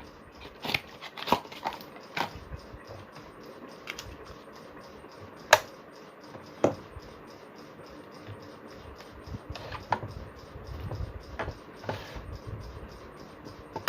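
Scattered clicks and knocks of a plug being pushed into a plastic switchboard socket and handled, the two sharpest about five and a half and six and a half seconds in.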